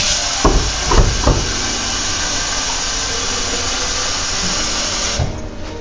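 Kitchen tap running into a container to collect more water, a steady hiss that cuts off shortly before the end. Three knocks come in the first second and a half.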